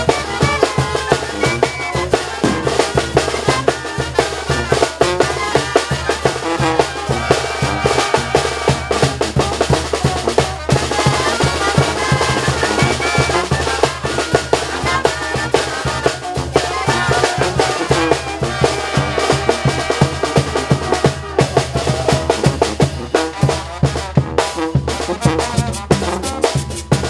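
Mexican banda (brass band) playing: brass instruments carry the melody over a steady, fast drum beat of bass drum and snare.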